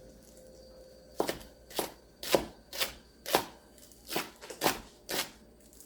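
Knife chopping small green onions (jjokpa) on a cutting board: a steady run of sharp chops, about two a second, starting about a second in.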